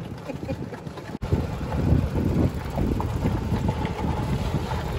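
Wind buffeting the microphone over the running noise of a moving golf cart. The sound cuts out for an instant about a second in and comes back louder.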